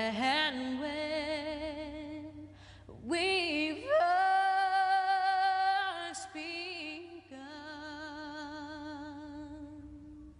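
Slow song: a woman's voice holding long notes with vibrato, with the highest and loudest note in the middle.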